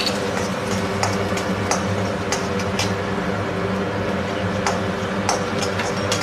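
Finely chopped garlic sizzling in a little hot oil in a steel kadai, stirred with a slotted metal spoon that clicks and scrapes against the pan now and then, over a steady low hum.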